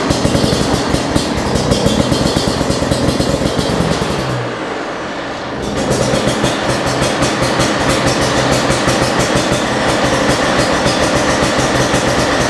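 Two-stroke engine of a Beta RR Racing enduro motorcycle running hard, easing off about four seconds in and pulling again about two seconds later.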